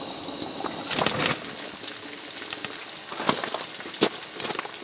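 Food cooking in a pan: a low sizzling and bubbling with a few sharp pops and clicks.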